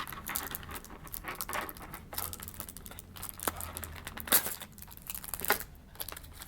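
Plastic packaging crinkling and rustling, with light clicks and taps, as the contents of a small box are handled. The louder rustles come about four and five and a half seconds in.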